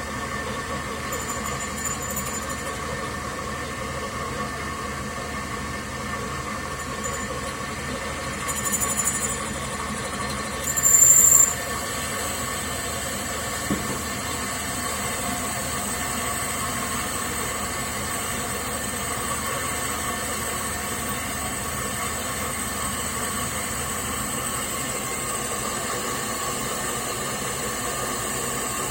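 Homemade metal lathe running with a steady whine while a drill bores into the spinning workpiece. The drill squeals briefly twice, the second time, about eleven seconds in, the loudest.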